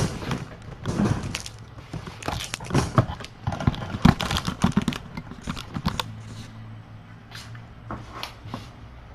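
Handling noises: rustling, clicks and knocks of things being moved and set down, busy for about six seconds, then quieter over a steady low hum.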